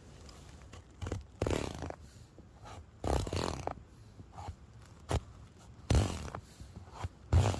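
A small pocket knife cutting through a raw potato: a handful of short, irregularly spaced cuts.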